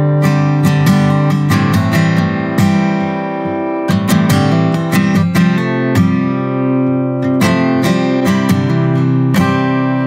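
Playback of a studio recording of an acoustic guitar strumming chords in a steady rhythm, the strings ringing between strokes. The recording was made with Soyuz 017 large-diaphragm condenser microphones, whose tube and FET versions are being compared.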